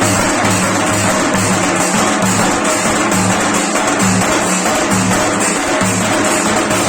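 Loud procession band music with drums and a heavy bass line, playing without a break.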